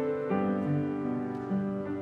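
Piano playing a slow, gentle passage, with new notes and chords sounding about every half second.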